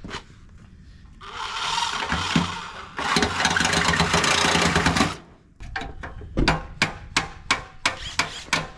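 A hand-held cordless power tool runs in two bursts at the meter socket, the second louder and about two seconds long; then a string of sharp knocks, about three a second, near the end.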